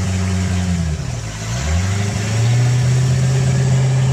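MerCruiser 5.7 small-block V8 marine engine running. About a second in, its speed sags, then it picks back up and holds steady at a slightly higher speed.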